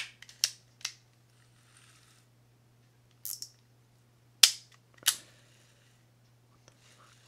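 Sharp clicks and clacks from handling a Shimano Citica 200D baitcasting reel during reassembly: a quick cluster at the start, then single louder clacks about three, four and a half and five seconds in.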